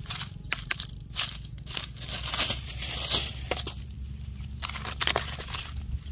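Irregular crackling, scraping and sharp clicks from hands working on a broken smartphone, over a steady low hum.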